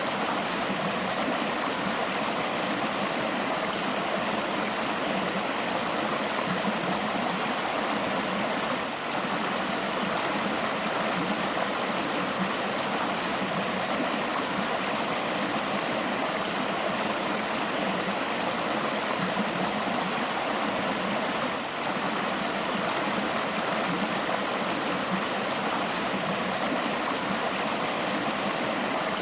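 A river flowing steadily: a continuous, even rush of water.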